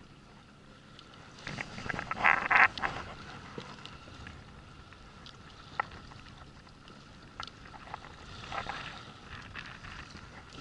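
A baitcasting reel being cranked steadily to wind in a hooked fish: a faint, even whir, over wind and water lapping at the inflatable boat. A louder, splashy burst of noise about two seconds in.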